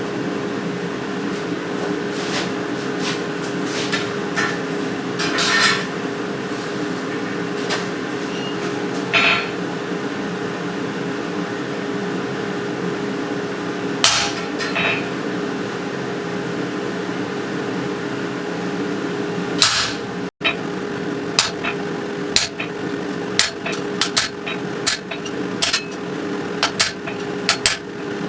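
Hammer blows on metal, scattered at first and then coming about one to two a second after a brief break near the two-thirds mark, over a steady mechanical hum.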